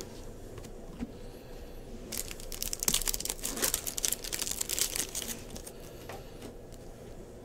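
Foil wrapper of a Bowman baseball card pack crinkling as it is torn open by hand, a few seconds of dense crackling that is loudest near the middle, with softer card handling before and after.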